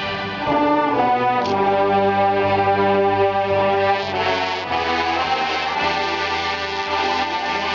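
Marching band brass playing a fanfare: loud held chords that change a few times.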